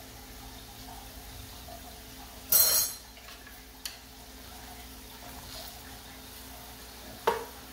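Rings of rice-flour dough deep-frying in hot oil with a steady sizzle. About two and a half seconds in, a loud half-second burst of sizzling as a fresh raw ring drops into the oil, then a small click, and near the end a sharp knock on the pan with a brief ring.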